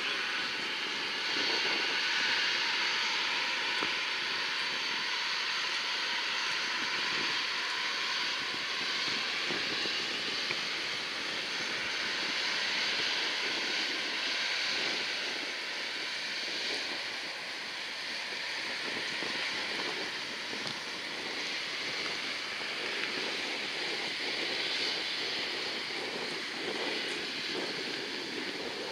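Four CFM56-type (F108) turbofans of a Boeing RC-135-family jet running at low taxi power, a steady even jet hiss and whine. Gusty wind buffets the microphone throughout.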